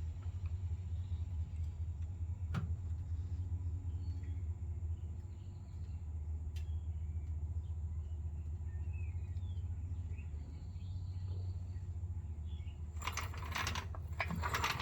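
Steady low background rumble with faint bird chirps, a single sharp click about two and a half seconds in, and a burst of clattering near the end.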